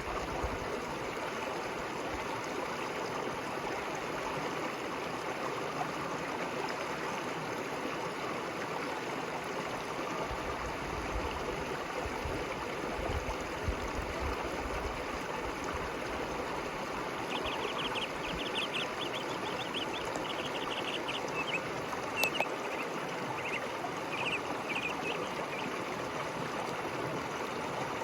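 River water flowing steadily, a constant rushing and gurgling. In the second half a run of short, high chirps rises above it, and a single sharp click falls about three-quarters of the way through.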